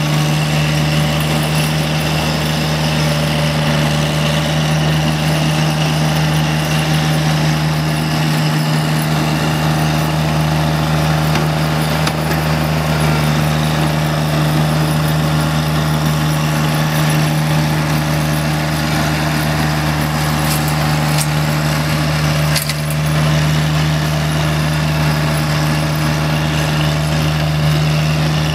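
Steady, loud low engine drone, like a heavy engine idling, unchanging throughout except for a brief dip about three-quarters of the way through.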